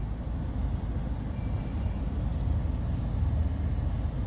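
Suzuki Baleno engine idling, a steady low running sound with no ticks or knocks. The power-steering column's gear, freshly cleaned and regreased, no longer gives its tak-tak knock.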